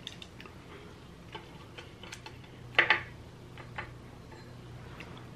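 Light, irregular clicks and taps of wooden chopsticks against each other and the dishes as a gyoza is picked up and dipped in soy sauce, with a louder pair of clicks about three seconds in.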